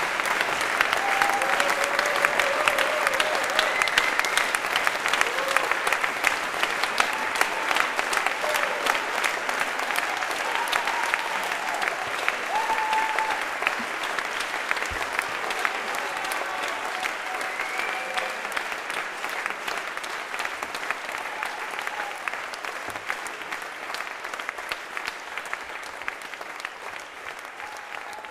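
Concert audience applauding, a dense clatter of many hands clapping with a few voices calling out over it. The applause slowly dies down.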